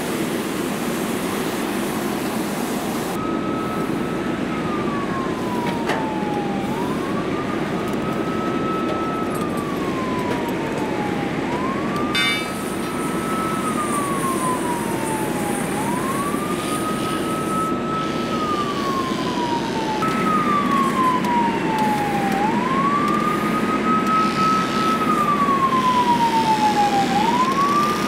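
Emergency vehicle siren on a slow wail, starting a few seconds in: each cycle rises quickly, holds a high note, then slides slowly down, repeating about every four and a half seconds. Underneath is a steady rushing noise from the fire hose spraying the burning car.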